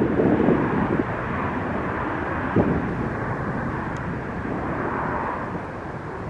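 Jet airliner engines making a steady rushing noise that slowly fades, with wind buffeting the microphone in the first second and a brief bump about two and a half seconds in.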